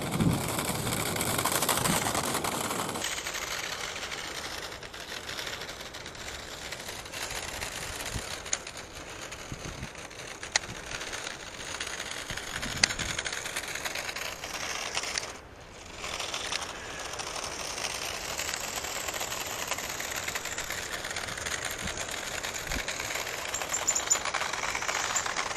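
A 1:24-scale remote-control toy car driving over rough ground: its small electric motor runs while the plastic body and wheels rattle and clatter, with a few sharp clicks.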